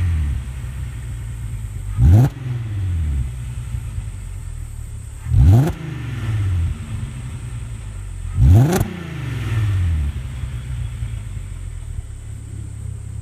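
VW Passat R36's 3.6-litre VR6 engine heard at the tailpipes, idling and blipped three times, each rev rising sharply and dropping back to idle, about three seconds apart. The exhaust has its resonator removed and a straight pipe in its place.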